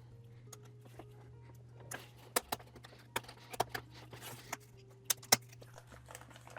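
Sharp plastic clicks and taps as parts are pressed into place in a drone remote controller's shell, a handful spread over a few seconds, the loudest two close together about five seconds in. Under them a steady low hum and faint background music.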